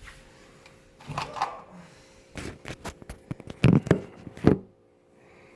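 A quick run of irregular clicks and knocks, loudest near the end, over a faint steady hum.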